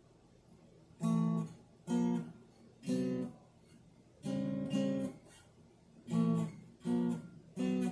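New acoustic guitar strummed in short chords, about eight of them, each cut off within a second, with brief pauses between.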